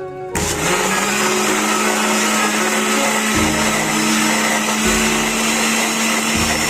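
Electric blender switched on about a third of a second in, its motor spinning up quickly and then running steadily as it blends tulsi (holy basil) leaves for juice.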